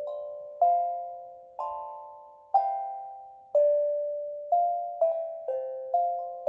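Steel tongue drum played slowly, one note at a time, about once a second. Each note rings on and fades under the next, with three quicker strokes near the end.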